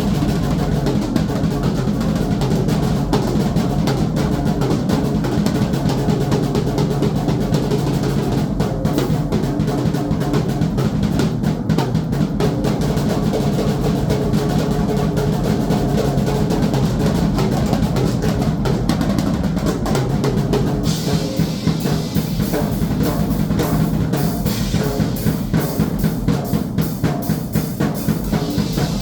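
Drum kit being played continuously, with bass drum and snare; about two-thirds of the way through, the cymbals come in much stronger and the strokes become sharper and more evenly spaced.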